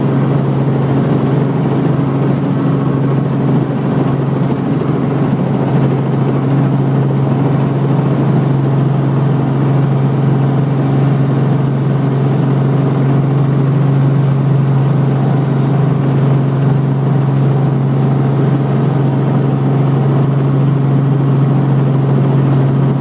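Robinson R44 Clipper II helicopter heard from inside its cabin: the six-cylinder Lycoming piston engine and rotors running with a steady, even drone at a constant pitch.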